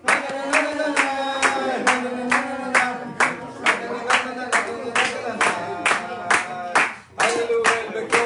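A small group of people clapping hands in a steady rhythm, about two claps a second, while singing together. The clapping and singing break off briefly about seven seconds in, then start again.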